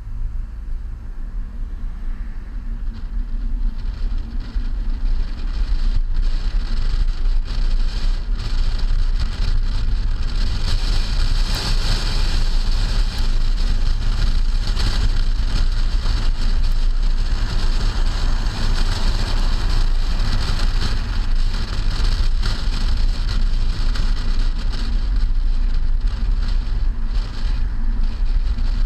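Wind rushing and buffeting over a camera mounted on the trunk of a moving car, with tyre and road noise beneath. It grows louder over the first few seconds, then holds steady.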